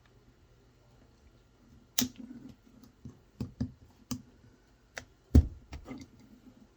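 Hard objects being handled: a series of sharp, irregular clicks and knocks starting about two seconds in, the loudest a heavier knock near the end.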